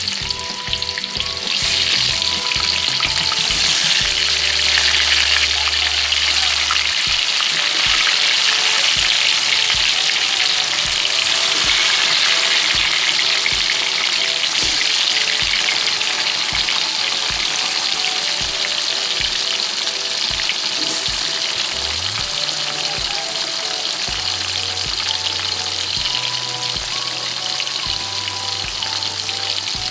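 Slabs of tempeh deep-frying in hot oil in a wok: a steady, dense sizzle of bubbling oil. Background music with a steady beat runs underneath.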